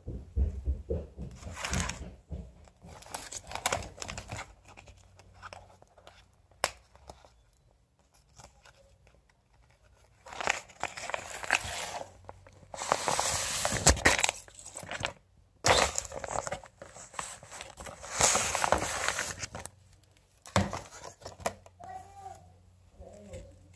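Crinkling and rustling of plastic-and-card hair-extension packages being handled. It comes in irregular bursts, loudest and longest around the middle.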